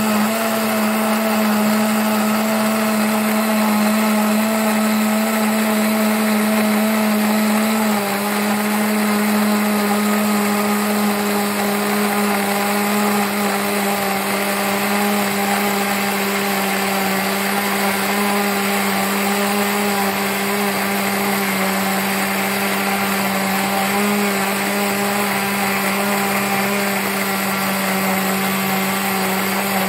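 Electric blender motor running steadily, grinding fresh coconut with coconut water, coconut milk and milk powder into a paste. Its pitch drops slightly about eight seconds in, then holds steady.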